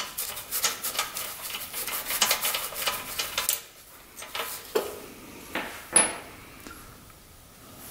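Socket wrench ratcheting in rapid metallic clicks for about three and a half seconds while loosening the spark plug in a Briggs & Stratton 5 hp engine's cylinder head, followed by a few separate metal clinks as the plug and socket come free.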